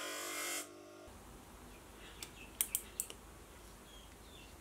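A small motor-driven abrasive wheel running steadily as it grinds the chrome plating off a brass airbrush trigger, cutting off abruptly under a second in. Then a quiet stretch with a handful of light clicks about two to three seconds in, as small airbrush parts are handled.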